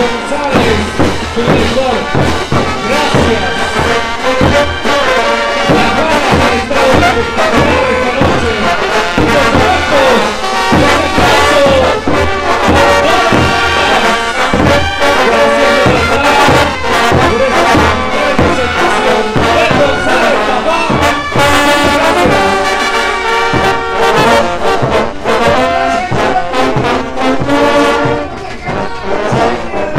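Bolivian brass band playing a morenada: trumpets and trombones carrying the tune over clashing hand cymbals, snare drums and bass drums keeping the beat.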